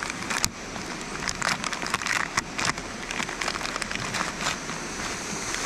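Irregular sharp crackles and clicks, most frequent through the middle, over the steady rush of a river.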